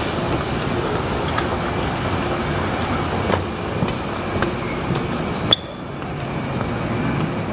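Steady rumbling background noise with a few light clicks, and one sharper click about five and a half seconds in, after which the hiss briefly drops.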